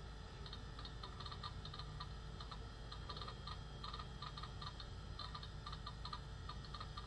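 Quantum ProDrive hard drive seeking while the Macintosh LC II boots: rapid, irregular clusters of light clicks, the 'popcorny' sound these drives make, a sign of the drive working normally. A low steady hum from the running machine sits beneath.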